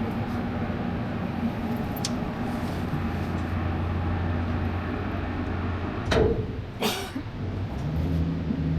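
A motor engine running steadily with a low, even hum that shifts in pitch near the end. Two short, sharp noises come about six and seven seconds in.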